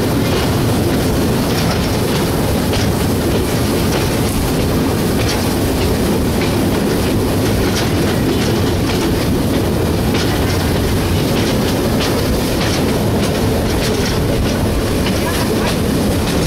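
Passenger carriage of a steam train running on the rails: a steady rumble of wheels on track, with occasional clicks over the rail joints.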